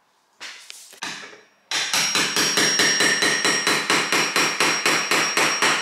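Claw hammer striking a tool held against ceramic wall tiles, chipping the old tiling off a kitchen wall. It starts with a couple of single knocks, then about a second and a half in settles into fast, even strikes at roughly five a second.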